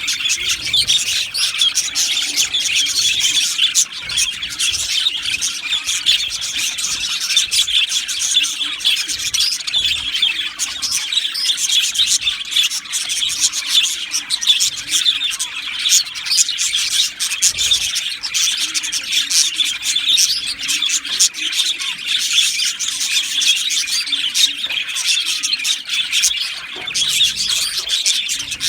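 A colony of budgerigars chattering and chirping continuously, many birds' calls overlapping into a dense, busy twittering.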